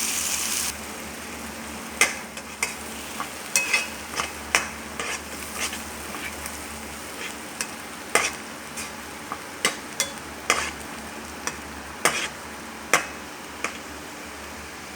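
Chutney frying in hot tempering oil in a pan: a loud sizzle that cuts off suddenly within the first second, then a spoon stirring it, with irregular clicks and knocks against the pan.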